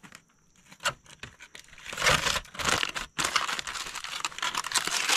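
Aluminium foil crinkling and crumpling as it is folded and wrapped by hand. A single light tap comes about a second in, and the crinkling starts about two seconds in and keeps going, with a brief pause.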